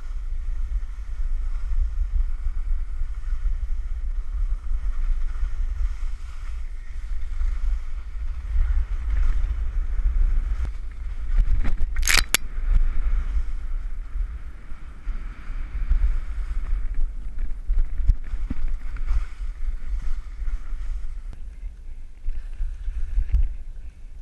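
Wind buffeting the action camera's microphone during a ski descent, over the hiss of skis sliding on snow. A single sharp click comes about twelve seconds in.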